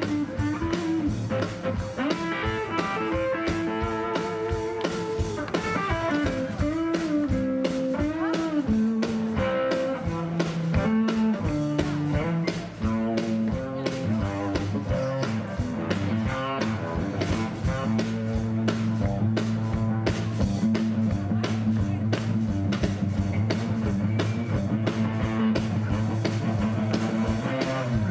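Live blues band playing instrumentally: a semi-hollow Telecaster-style electric guitar plays melodic lead lines with string bends over bass and a drum kit.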